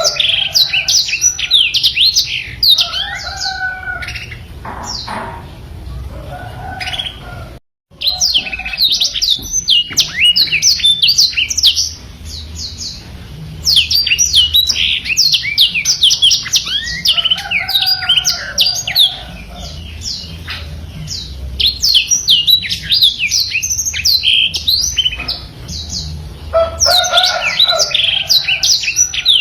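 Black-throated canary (blackthroat) singing a long, fast warble of quick, high, down-sweeping notes in dense bursts, with lower warbled phrases in between. The sound cuts out completely for a moment about eight seconds in.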